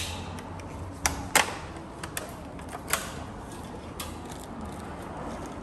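A handful of sharp, short mechanical clicks and knocks scattered over a low steady background hum, the loudest a little over a second in.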